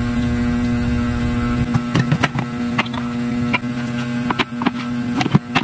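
A steady electrical hum, and from about two seconds in a scatter of sharp clicks and knocks as tin cans are handled and set down.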